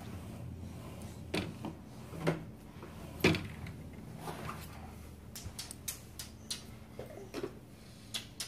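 Scattered light knocks and clicks, the loudest a single sharp knock about three seconds in, followed by a run of smaller, quicker clicks in the second half.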